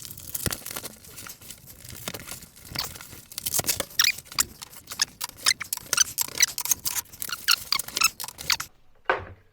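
Flat-pack cabinet packaging being handled and pulled apart: a quick run of short scrapes, rubs and squeaks.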